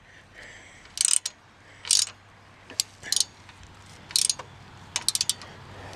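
A 9/16 ratchet wrench clicking in several short bursts as a nut and lock washer are run down tight on a bolt.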